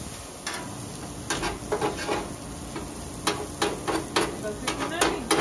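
Metal spatula scraping and clacking against a flat-top griddle in a quick, irregular series starting about half a second in, over the steady sizzle of shredded cheese frying on the hot plate into a cheese crust.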